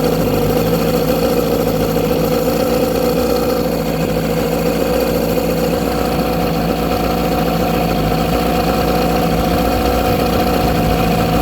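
1997 Tracker 40 hp two-stroke outboard made by Mercury idling steadily.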